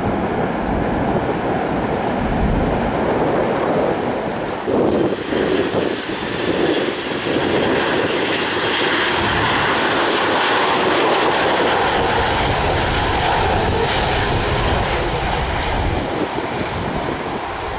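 Boeing 737 jet airliner on final approach, its engine noise building to a loud hiss with a high whine as it passes, then easing off as it nears touchdown. A low wind rumble on the microphone runs under it.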